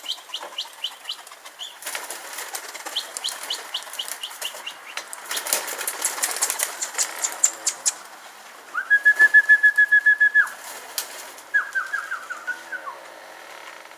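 Vouta pigeons' wings flapping and clapping as the birds take off from the loft, with a dense burst of flapping in the middle. Short chirping calls come early and again near the end, and a loud, pulsing, steady whistle sounds about two thirds of the way through.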